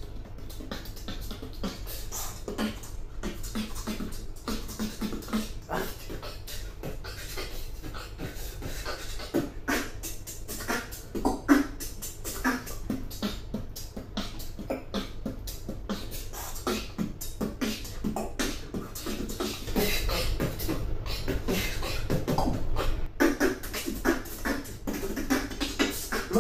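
Human beatboxing: fast percussive mouth sounds, dense clicks and hits over a low bass tone, getting louder and heavier about twenty seconds in.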